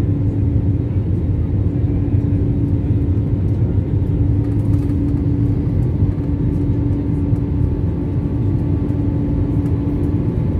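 Airliner engines droning steadily during takeoff, heard from inside the passenger cabin as a constant loud rumble with a steady hum.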